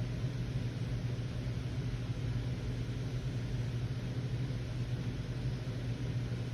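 Steady low hum over a constant hiss, with no distinct events: background machine or room noise.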